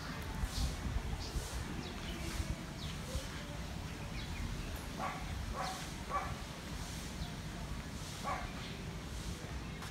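A dog barking a few short times, about halfway through and again later, over a steady low background hum.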